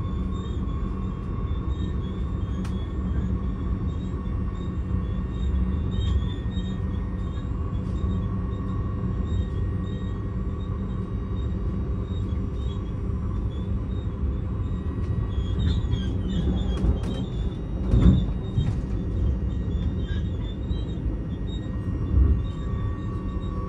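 Passenger train running at speed, heard from inside the carriage: a steady rumble of wheels on the track with a thin steady whine over it. A heavier knock about eighteen seconds in and a smaller one near the end.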